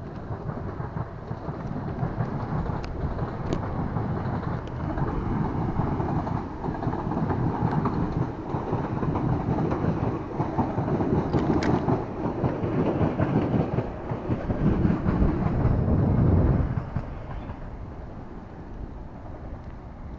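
Wind buffeting the microphone of a camera carried on a moving bicycle, a heavy low rumble that swells and eases and drops off sharply about three-quarters of the way through. A few faint clicks sound over it.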